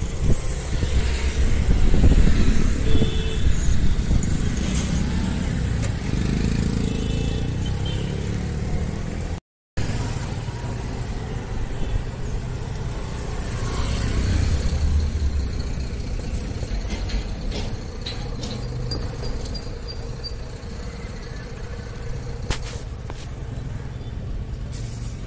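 Road traffic passing close by: cars, scooters and motorbikes driving past, their engines and tyres, loudest in the first few seconds and again about fourteen seconds in. The sound drops out for a moment about nine and a half seconds in.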